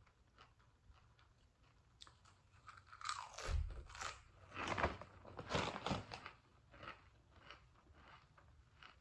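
Barbecue potato chips crunching as they are bitten and chewed, with the plastic chip bag crinkling as a hand reaches in; loudest from about three to six seconds in.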